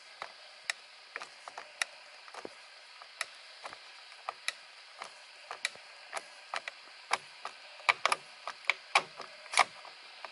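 T20 Torx driver backing out the screw that holds a BMW i8 paddle shifter to the steering wheel: a string of sharp, irregular clicks, louder and closer together near the end.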